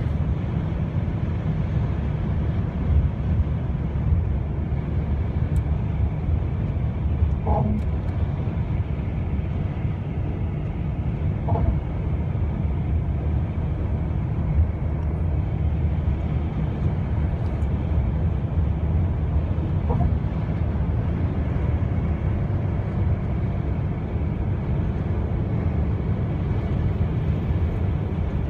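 Steady low rumble of a car's tyres and engine at motorway speed, heard from inside the cabin.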